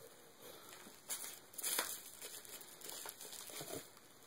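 Foam packing peanuts rustling against each other and the cardboard box as they are handled, in a few short crinkly bursts, the loudest near the middle.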